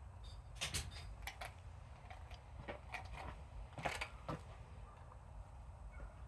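Rottweiler puppy gnawing a bone: irregular, sharp clicks and cracks of teeth on bone, a few close together about a second in, the loudest near four seconds in.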